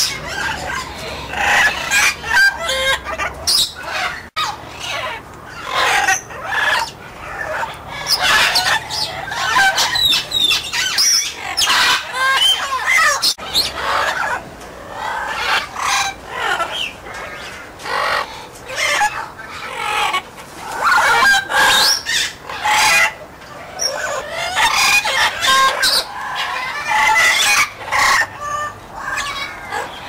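Amazon parrots calling over and over in a near-unbroken string of loud calls, typical of their contact calling with other Amazons in the aviary.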